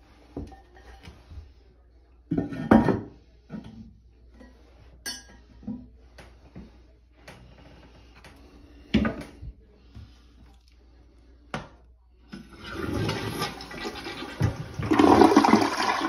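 A few scattered knocks and clicks, then about twelve seconds in a toilet flushes, a rush of water into the bowl that is loudest near the end. It is a test flush of a toilet just fitted with a new fill valve.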